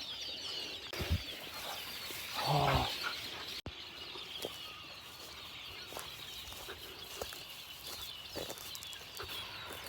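A large flock of birds calling at once: a dense, overlapping chatter of short high chirps that never lets up. One louder, lower call stands out about two and a half seconds in.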